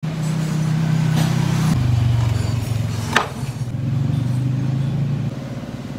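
A welded steel box vise clinking once as it is handled and tipped, about three seconds in, over a steady low hum that shifts in pitch twice.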